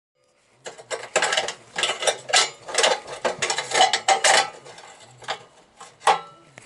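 Screwdriver working a screw out of the sheet-metal burner cover of a Suburban SF-30 RV furnace, with loose metal parts rattling: a quick, irregular run of metallic clicks and scrapes that thins out to a few separate clicks over the last couple of seconds.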